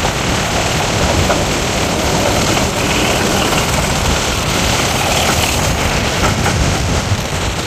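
Steady rush and rumble of a moving passenger train heard from an open carriage window: wheels running on the track, with wind across the microphone.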